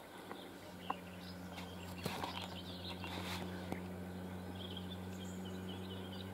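Outdoor ambience: a steady low hum with faint bird chirps in the second half, and a few light knocks.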